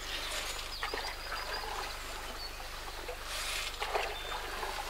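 A hand paddle dipping and pulling through river water, with splashing and trickling, the strongest stroke about three and a half seconds in. Faint birdsong sounds behind it.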